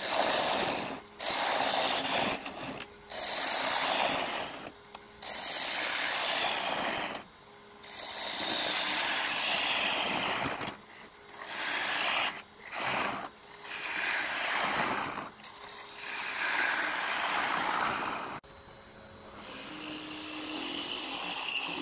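Turning tool cutting into a spinning walnut blank on a wood lathe, hollowing out the inside of a box: a series of rough scraping cuts, each a second or two long with short breaks between, over the lathe's faint steady hum. The cuts grow quieter near the end.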